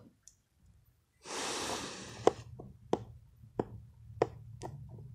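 A brief rustle, then about seven sharp plastic clicks and taps at irregular intervals, as small plastic toy figures are handled and set down on a hard plastic playset.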